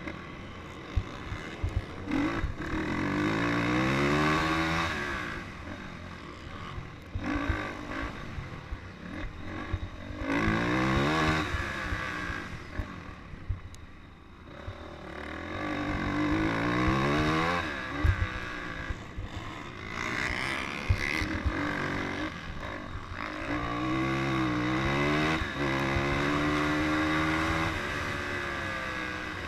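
Dirt-track race engine heard from the rider's helmet, revving hard and climbing in pitch again and again as it accelerates out of the turns, then easing off into each corner. Low knocks from the track and wind run underneath.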